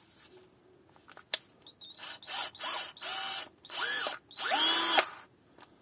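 Parkside PBSA 12 E4 12 V cordless drill's motor run in a series of short trigger pulls, each rising in pitch as it spins up and falling as it stops, the later ones held longer, the last reaching a steady speed. A single sharp click comes just before the first run.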